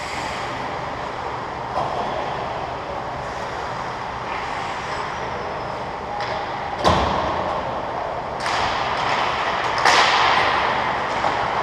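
Ice hockey skate blades scraping and carving on rink ice, with one hard thud about seven seconds in and louder scraping surges from about eight and a half seconds on.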